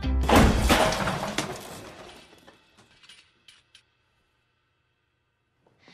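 A thrown chair crashing loudly, then a few smaller clattering knocks with a ringing tail dying away over about three seconds.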